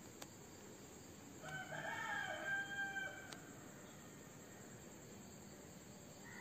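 A rooster crowing once, a single crow of just under two seconds starting about a second and a half in, over the steady chirring of crickets.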